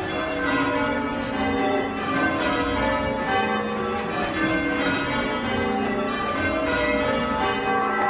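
Church bells being change rung, each bell swung full circle by a ringer pulling its rope. A continuous run of overlapping bell strikes, each one ringing on beneath the next.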